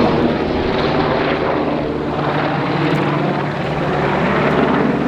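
A steady mechanical drone from a motor or propeller, with a low hum that holds even throughout.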